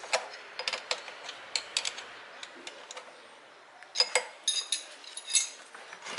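Irregular metallic clicks and clinks of a hand tool tightening the throttle body's mounting bolts, with brighter ringing clinks from about four seconds in.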